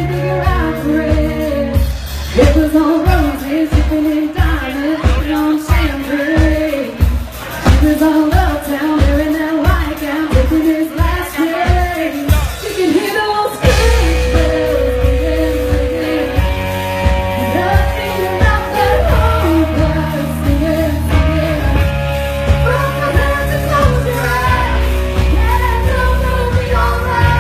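Live band performing a country-pop song, with a lead singer over a steady drum beat. About halfway through, the band comes in fuller, with sustained bass and held notes under the vocal.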